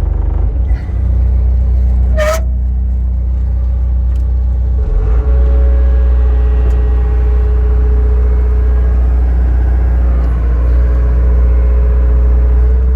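Kobelco excavator's diesel engine running, with a short squeak about two seconds in. About five seconds in it gets louder and a steady whine joins it as the hydraulics are worked under load to test the newly fitted hose.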